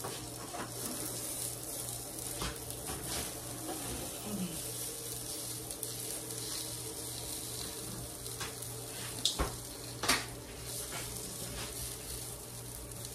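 Sausage links sizzling on an electric griddle, with scattered scrapes and taps of a spatula against the griddle; the two sharpest taps come a little past the middle.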